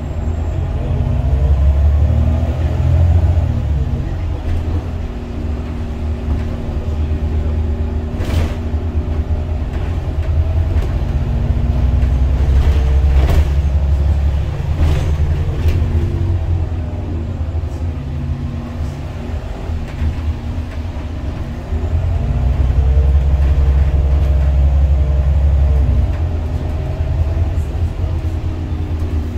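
Inside the cabin of an Irisbus Citelis 12 city bus: its Iveco Cursor 8 six-cylinder diesel drones low, rising and falling in pitch as the bus pulls away and eases off several times. A few sharp knocks come through in the middle.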